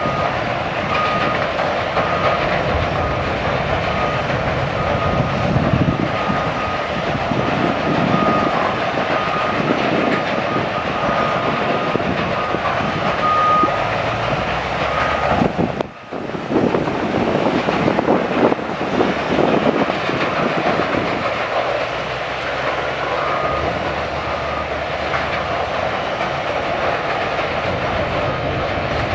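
Sawmill machinery running with a loud, steady industrial din, while a repeated beeping tone sounds on and off over it. The noise cuts out for a moment about sixteen seconds in.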